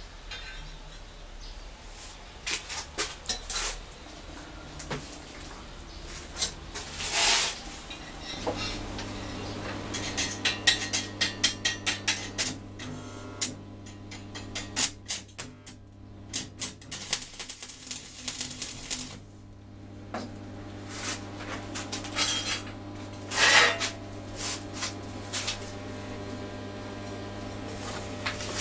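Steel rod pieces clinking and knocking against a steel workbench as they are handled and set down, in irregular clusters of sharp metallic knocks. A steady electrical hum begins about a third of the way in and runs under the knocks.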